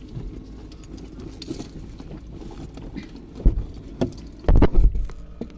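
Rummaging and clattering inside a car while someone searches for an umbrella: small rattles, then a few heavy bumps and knocks in the second half, the loudest a cluster of thuds about four and a half seconds in.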